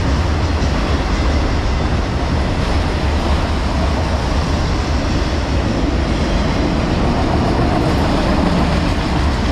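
Autorack freight cars of a Norfolk Southern train rolling slowly past: a steady rumble of steel wheels on rail.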